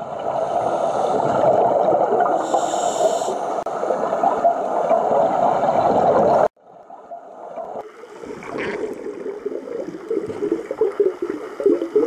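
Rushing, gurgling water, cut off abruptly about six and a half seconds in, then a second stretch of rougher water noise building back up.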